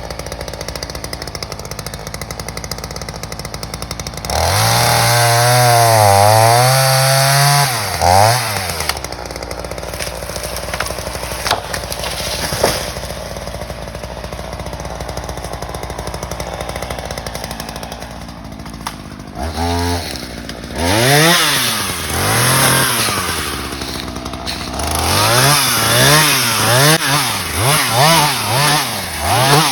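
Two-stroke Ryobi gas chainsaw idling, revved up in bursts. One long rev comes about four seconds in and a quick blip follows. From about twenty seconds in the throttle is squeezed over and over, the pitch rising and falling each time.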